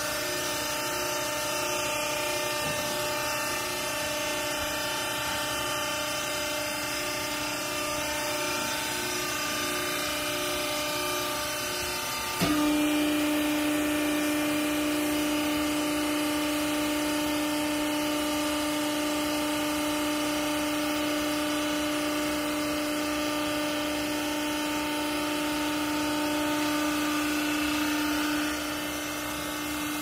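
Hydraulic power unit of a twin-chamber clothing baler running with a steady mechanical hum. About twelve seconds in it steps up suddenly to a louder, steady whine, which eases off again near the end.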